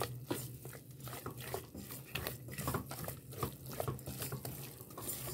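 Silicone spatula stirring and scraping a thick semolina, sugar and khoya halwa mixture around a metal pot, an irregular run of soft scrapes and squishes.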